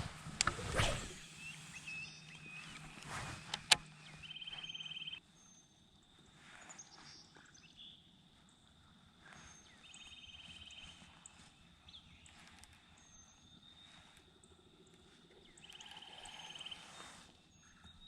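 Knocks and handling noise with a sharp click in the first few seconds, then quiet open-air ambience in which a bird repeats a short, even trill about every five to six seconds, with faint high chirps between.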